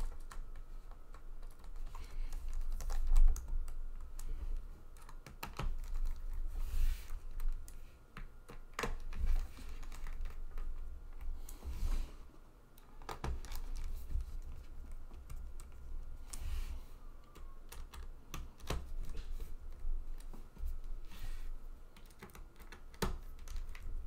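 Precision screwdriver driving the screws back into a Dell Latitude E7470's plastic bottom access panel, with scattered irregular clicks and taps as the panel is pressed and clicks into place, over low bumps of the laptop being handled on the table.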